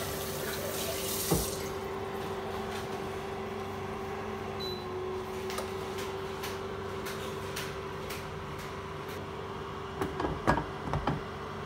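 Steady background hum and hiss, with one knock just over a second in. About ten seconds in, a glass lid clinks and knocks a few times as it is set onto a frying pan.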